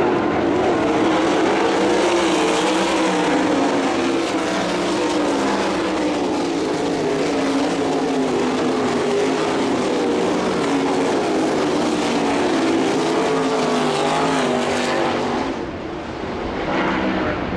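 A field of sprint cars racing, several methanol-fuelled V8 engines at high revs with their pitch wavering up and down together as the cars work the turns. About fifteen seconds in the sound briefly drops away, then comes back up.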